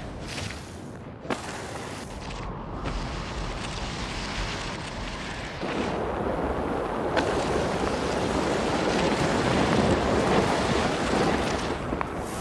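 Strong wind rushing and buffeting the microphone, getting louder about six seconds in.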